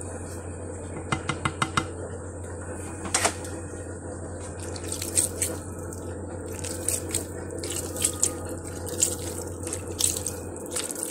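Steamed barley couscous grains rubbed and tossed by gloved hands against a glazed clay dish: short gritty swishes, coming thicker from about halfway through, after a few quick clicks early on. A steady low hum runs underneath and stops near the end.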